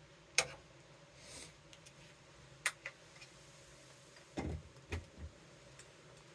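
A few sharp plastic clicks and a couple of dull knocks as a cable plug is pushed into a USB-C charging hub and the hub is handled.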